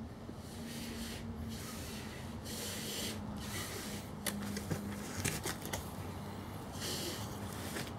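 Tabby cat grooming itself: rasping licks of its tongue on fur in short repeated bursts, with a few small clicks of nibbling about halfway through, over a faint steady low hum.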